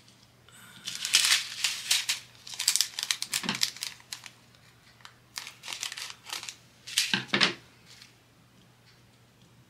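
Small plastic bag of diamond painting drills crinkling as it is handled and pulled open, in several irregular bursts that stop about two seconds before the end.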